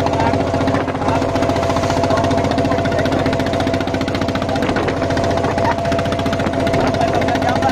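A wooden motorboat's engine running steadily under way, with a rapid, even knocking beat.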